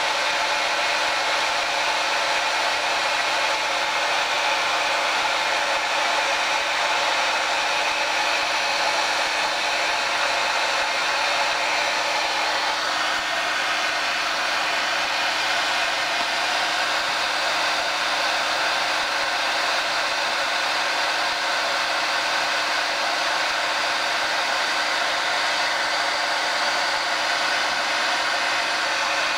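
Handheld hot-air tool blowing steadily, heating small capacitors on a circuit board.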